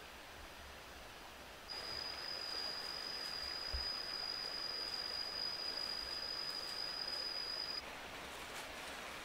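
Steady hiss of forest ambience. About two seconds in, a single unbroken high-pitched insect call starts, holds one pitch, and cuts off suddenly about six seconds later.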